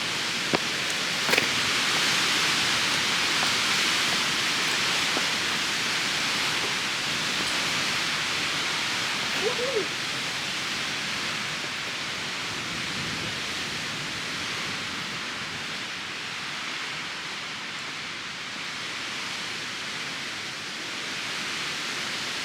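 Steady rushing wind on an exposed mountain trail: an even hiss that eases off a little in the second half. There are a couple of small clicks near the start and a brief voice-like sound about ten seconds in.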